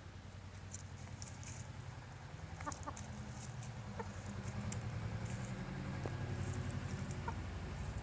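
Roosters foraging in dry leaves and pecking at a wooden stump: a few light pecks and rustles over a low, steady hum that grows louder through the second half.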